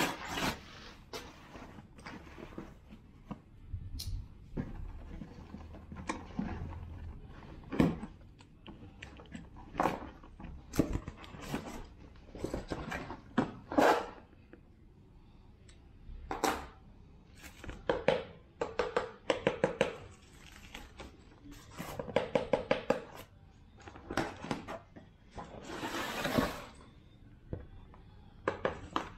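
Plastic bag and cardboard packaging being handled and pulled off a durian: irregular rustling and crinkling with occasional knocks, including a few quick runs of short rattles partway through.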